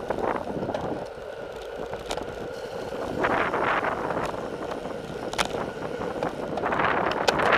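Wind rushing over the microphone of a camera riding down a fast road-bike descent, swelling about three seconds in and again near the end, with a few sharp clicks.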